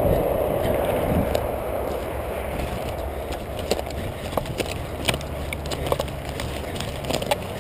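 Running footsteps through long grass and forest undergrowth picked up by a chest-mounted camera in its housing: a steady rustling rumble with many sharp clicks of twigs and brush underfoot. The rustling is heaviest at the start and eases off about a second in.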